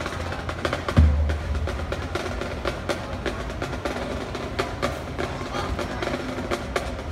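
Marching band drum line playing: a rapid stream of sharp stick strikes and snare taps, with a heavy bass drum hit about a second in.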